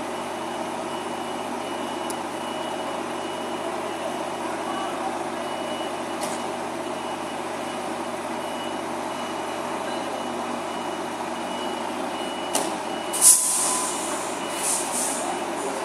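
Lorries' diesel engines running with a reversing alarm beeping as they manoeuvre. About thirteen seconds in comes a sharp, loud hiss of air brakes, followed by a couple of softer hisses.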